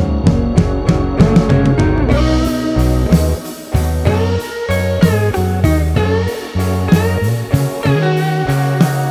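Background music: a guitar tune with slide guitar over a bass line and drums.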